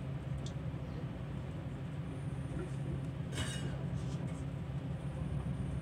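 XPT passenger train heard from inside its carriage, running along the track with a steady low rumble and hum. A brief sharp click comes about three and a half seconds in.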